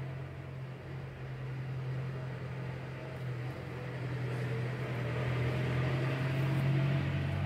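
A steady low machine hum that grows louder toward the end, with a fainter higher tone rising slowly.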